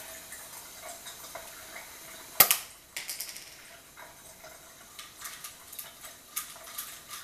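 Handling of small objects, with a plastic pill bottle in hand: one sharp, loud click about two and a half seconds in, then several lighter clicks and taps.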